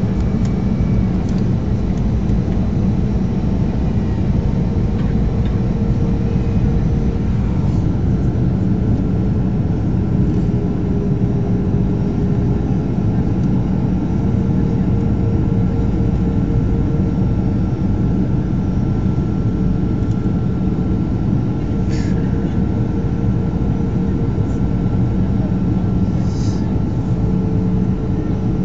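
Steady cabin noise of a Boeing 737-500 in flight, heard from a window seat by the wing: the drone of its CFM56-3 turbofan engines and rushing airflow, with a steady mid-pitched hum on top.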